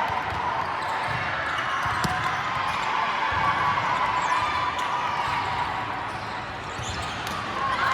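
Gym ambience during a youth volleyball match: a few sharp ball thuds on the court over a steady murmur of voices echoing in a large hall.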